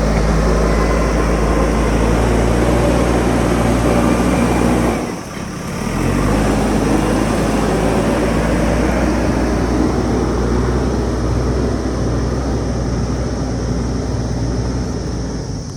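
JCB backhoe loader's diesel engine running hard. It dips briefly about five seconds in, then picks up again.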